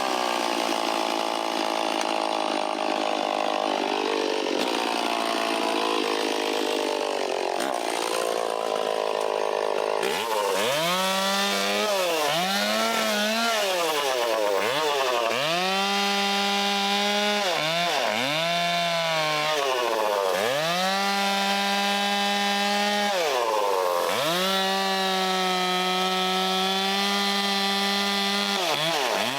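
Vintage Stihl 034 two-stroke chainsaw cutting wood. It runs steadily in the cut for about ten seconds, then is throttled up to full speed again and again, dropping back between short cuts.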